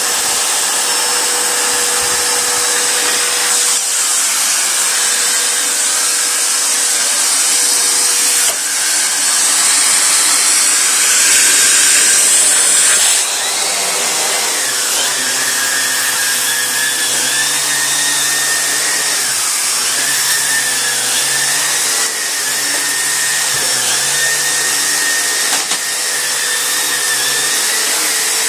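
Hoover Constellation stainless canister vacuum cleaner running steadily, with a steady hum under the rush of air. About 13 seconds in the sound drops slightly and changes character.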